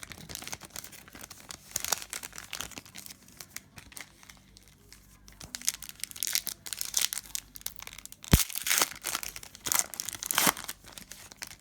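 Crinkling and tearing of a sealed trading-card pack wrapper as it is ripped open and handled, with irregular crackles and one sharp click a little past the middle.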